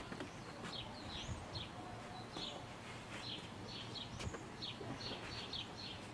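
Small birds chirping in the background, short high chirps repeating about two or three times a second, over faint outdoor ambience.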